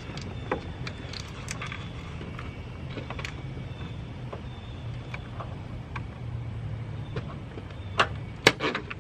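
Light plastic clicks and rattles of wiring-harness clips and a zip tie being worked loose by hand in a car's engine bay, with a few sharper snaps near the end, over a steady low hum.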